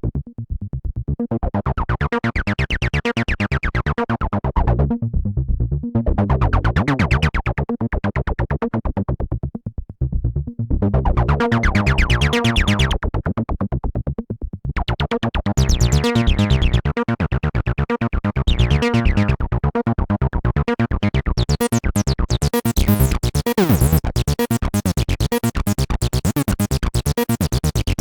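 Behringer TD-3-MO analogue bass synthesizer, a TB-303-style acid synth, playing a fast repeating step-sequenced bassline. Its filter opens and closes in slow waves, each about four seconds long. Over the last third the sound stays brighter and more resonant, with a downward swoop in pitch.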